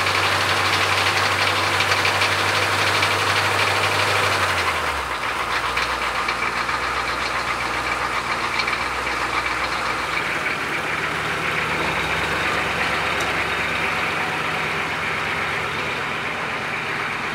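Old Chevrolet pickup truck's engine idling steadily in freezing weather; its low hum drops a little in pitch about five seconds in.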